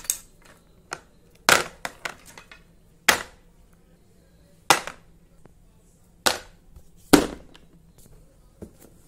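Oil pastel sticks dropped one at a time into a clear plastic box, each landing with a sharp clack. About five loud clacks come roughly every second and a half, with smaller rattles of sticks between them.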